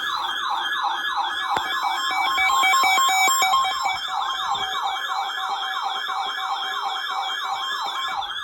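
Electronic siren in a fast yelp, its pitch sweeping up and down about three times a second. Short beeps and a few clicks sound over it between about two and four seconds in.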